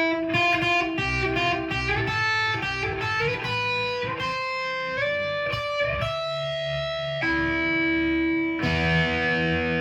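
G&L Legacy Tribute electric guitar on its neck-and-middle single-coil pickups, played through a Line 6 amp set to a high-gain distortion sound: a run of single notes with some held longer in the second half. This in-between pickup position cancels the single-coil hum, so the distorted tone comes through without humming.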